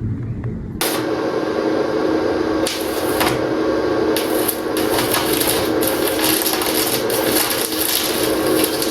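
Electric arc welding: a steady, dense crackle and sputter of the arc as the balcony's steel legs are welded. It follows a low rumble that cuts off suddenly under a second in.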